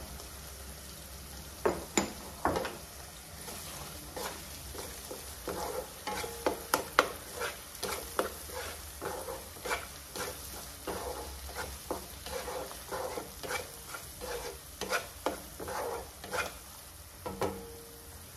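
Wooden spatula stirring spiced masala paste in hot oil in a kadai, scraping and knocking against the pan in irregular strokes over a steady low sizzle: the curry's masala being fried in oil.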